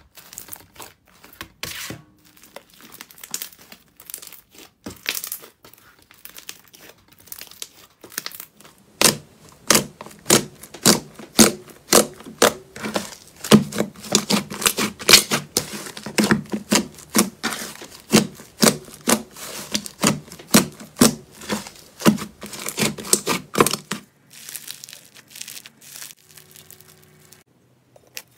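Hands pressing and kneading slime, making sticky clicks and pops. They are sparse and quiet at first, then loud and regular at about two a second through the middle, then thin out near the end.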